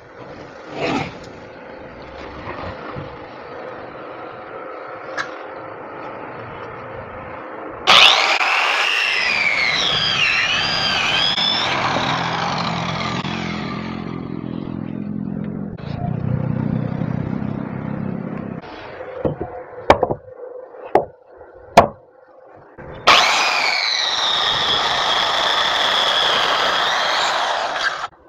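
Handheld electric circular saw cutting through a weathered log: the motor starts suddenly and its whine dips and rises in pitch as the blade loads up in the wood, then drops to a lower rumble. A few sharp knocks follow, and a second saw run starts later and cuts off suddenly near the end.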